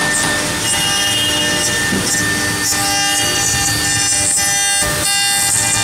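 Heavy-duty CNC router's water-cooled spindle cutting a relief carving into a wooden panel: a steady high whine over a continuous rasping cutting noise, shifting in tone a few times as the cutter changes its path.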